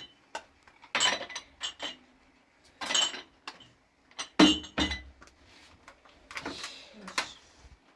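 Dishes and glasses being handled: a string of separate clinks and knocks, several ringing briefly, the loudest about a second, three seconds and four and a half seconds in.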